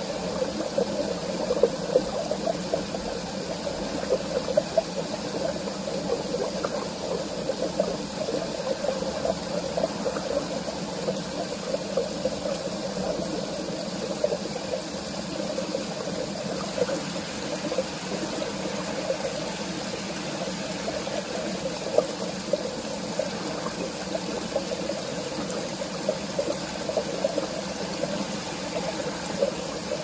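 Mountain river flowing and gurgling over rocks: a steady rush of water with constant quick little splashes.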